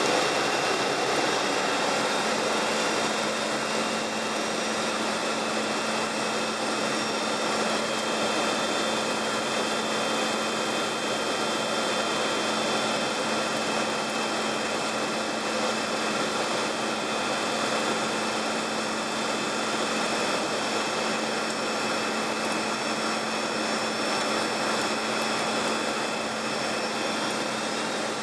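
Steady cockpit noise of an airplane in descent on approach: an even rush of engine and airflow noise with a constant low drone and faint high whines.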